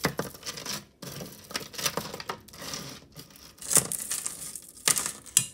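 Metal jewelry chains and glass beads clinking and rattling as a necklace is picked up and untangled by hand, with rustling in between and a few louder clinks in the last two seconds.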